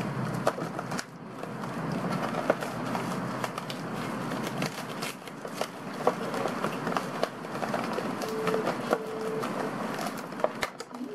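Plastic food packaging crinkling and crackling as it is handled and pulled open, with many small sharp crackles.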